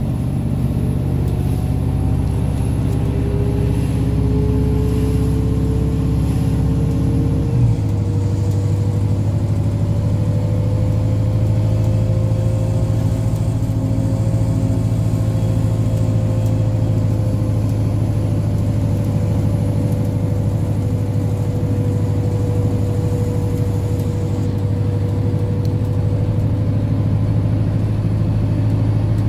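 A New Flyer D60LF articulated diesel bus heard from inside its cabin as it drives: a steady low engine drone with a thin whine that rises in pitch as the bus gathers speed over the first dozen seconds, then holds. About eight seconds in, the low drone changes abruptly with a small knock, a gear change.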